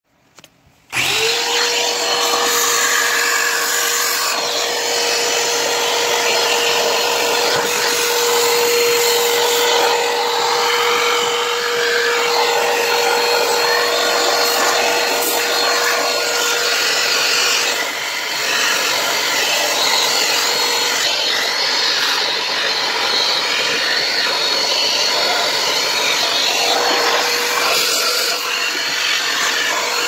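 Vacuum cleaner running steadily, switched on about a second in and shut off at the end, with a steady whine that fades out partway through and comes back near the end.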